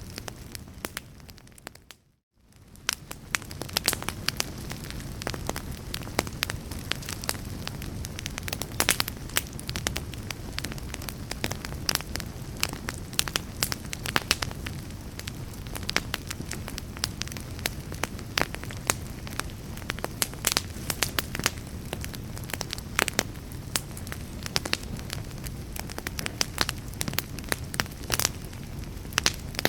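Wood fire in a fireplace, with dense crackling and popping over a low steady rumble of flames. About two seconds in the sound fades briefly almost to silence, then comes back up.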